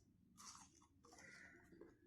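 Faint close-miked sounds of raw green mango with red chilli masala being handled or eaten: a short crisp crackle about half a second in, then a softer scraping rustle.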